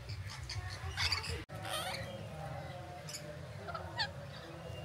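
A few short bird squawks, with a falling call about four seconds in.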